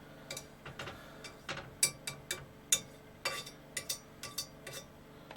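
Small kitchen knife digging into bacon fat, clicking and scraping against its container and the pan in a string of irregular light taps.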